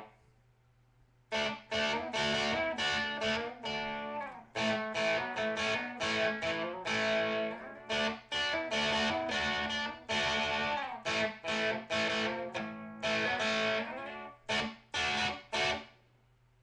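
Epiphone electric guitar with Seymour Duncan distortion pickups, played through a Line 6 Spider amp: distorted riffing in short phrases broken by brief stops, starting about a second in.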